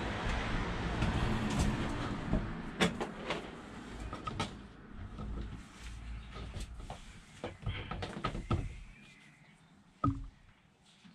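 Rustling and scattered clicks and knocks as blue silicone coolant hoses and tools are handled, over a low rumble that dies away about nine seconds in. One sharp knock about ten seconds in.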